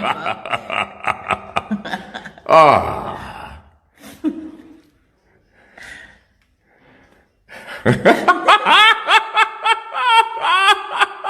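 A person laughing in quick breathy bursts, breaks off for a few seconds in the middle, then laughs again.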